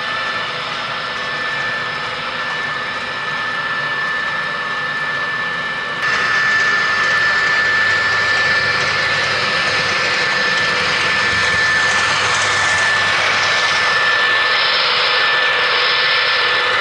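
MTH ES44AC GEVO model diesel locomotive's onboard sound system playing a steady diesel engine sound, with a constant high tone running through it. It steps up in loudness about six seconds in.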